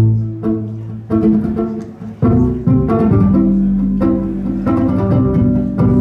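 Violin played live: a run of plucked pizzicato notes over sustained low tones.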